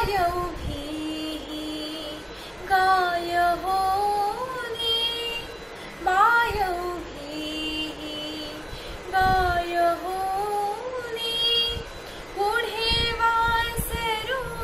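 A young woman singing a devotional song (bhakti geet) solo, in sung phrases with gliding, ornamented notes and short pauses between them.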